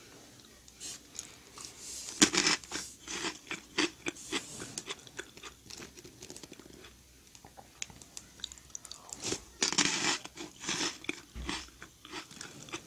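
Crisp meringue cookies being bitten and chewed: two bouts of quick crunching, about two and nine seconds in, each settling into softer chewing as the meringue melts in the mouth.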